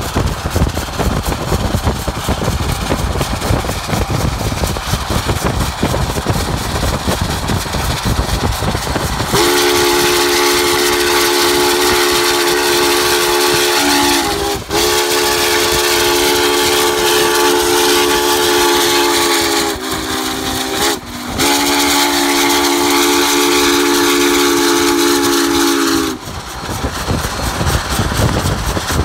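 Union Pacific 844's chime steam whistle blowing several tones at once in four blasts, long, long, short, long: the grade-crossing signal. Under and around it runs a steady rumble of road and wind noise from the car pacing the train.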